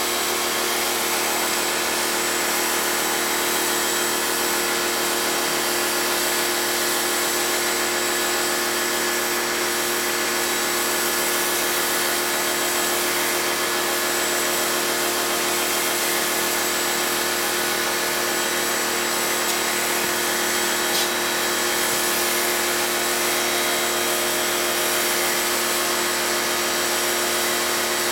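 Pressure washer running steadily while its foam cannon sprays soap foam: an even motor whine under a continuous spray hiss.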